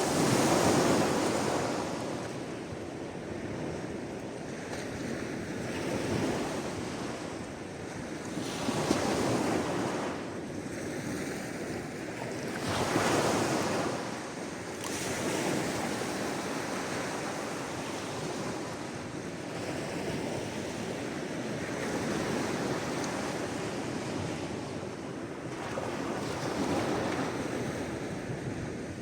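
Sea waves breaking and washing onto the shore, the surf rising in a surge every few seconds over a constant rush of water. The biggest surge comes right at the start.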